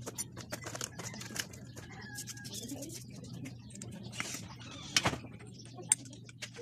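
Light clicks and clinks of small metal motorcycle engine parts being handled and set against the crankcase, with two sharper knocks about five and six seconds in.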